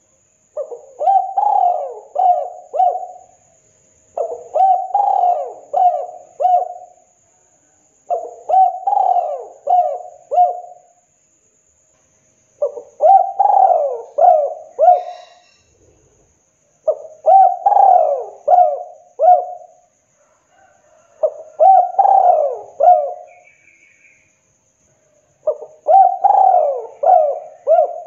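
Spotted dove (tekukur) cooing: seven phrases, one about every four seconds, each a quick run of four or five coos.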